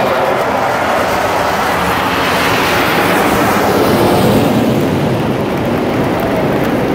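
Four F/A-18 fighter jets flying low overhead in formation: a loud jet roar that swells to a peak about four seconds in and drops in pitch as they pass.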